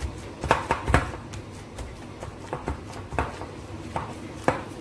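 Risen yeast dough being punched down by hand in a glass bowl: irregular dull thuds and knocks.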